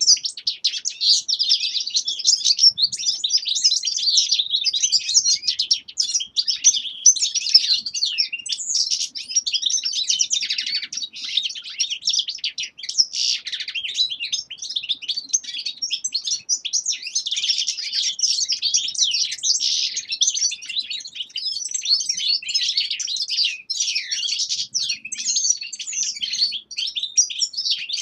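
Caged finches, among them goldfinches and siskins, singing and twittering without pause: a dense, overlapping chatter of high, fast chirps and trills from several birds at once.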